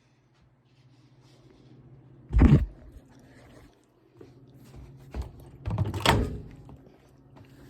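Two loud thunks of kitchen handling, about three and a half seconds apart, with a few lighter clicks between, over a low steady hum.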